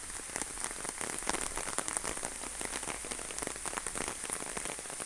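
Heavy rain falling and pattering on surfaces, with many closely spaced drop impacts over a steady hiss.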